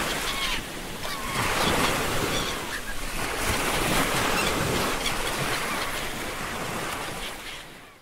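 Ocean surf washing in steadily, with seagulls giving short curving cries now and then, mostly in the first half. The surf fades out over the last couple of seconds.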